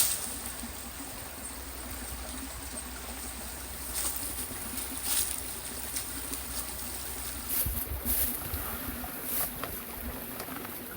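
Steady rushing of a river flowing past, with a few faint clicks. A low rumble of wind on the microphone comes in near the end.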